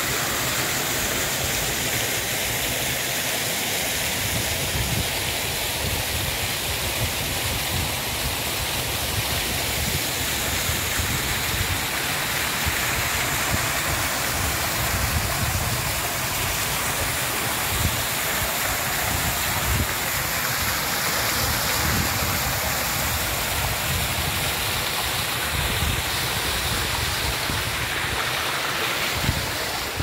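Waterfall: a steady, loud rush of falling water.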